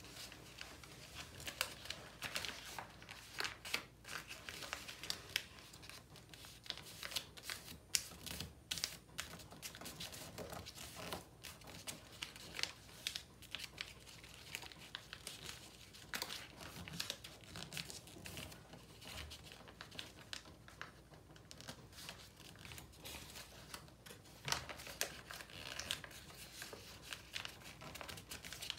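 A sheet of recycled paper being folded and creased by hand into triangles: irregular crinkling and rustling of paper.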